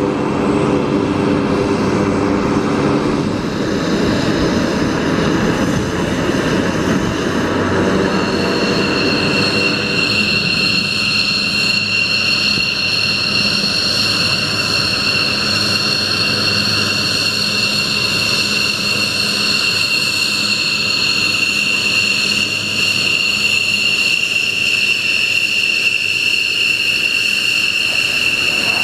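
F-16 fighter jet's engine whining steadily as the jet taxis. A piercing high whine comes in about eight seconds in and holds, over a low rumble.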